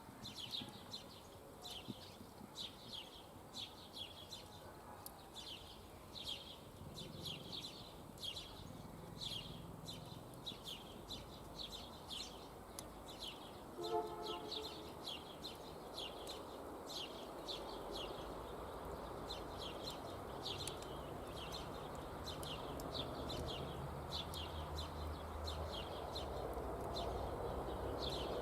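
A small songbird chirping over and over, about two short high notes a second, with one brief lower call about halfway through. A steady rustling background grows louder near the end.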